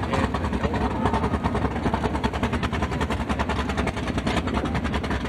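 Drag race car engine running at idle, steady, with an even, rapid pulse.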